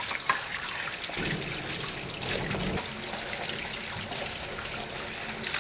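Tap water running into a stainless steel sink as white plastic containers are rinsed under it, the water trickling and splashing off them steadily.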